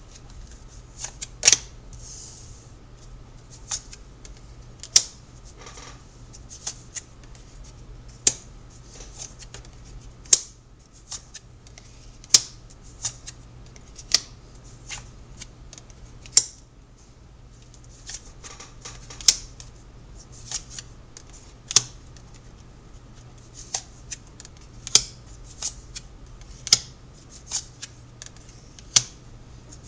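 Tarot cards being handled and shuffled: sharp, irregular clicks and snaps of card against card, one or two a second, some in quick pairs, over a faint steady hum.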